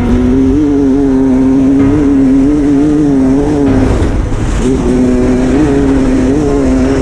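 Dirt bike engine running hard at steady high revs under race throttle, easing off briefly about four seconds in and then picking up again, with wind buffeting the on-board microphone.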